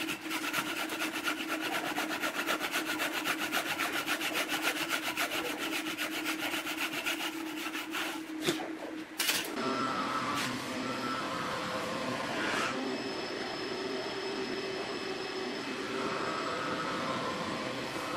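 Hand saw cutting through a pine block clamped in a vise, in rapid, even rasping strokes. The sawing stops about eight and a half seconds in, followed by two sharp knocks and then a steadier background with faint tones.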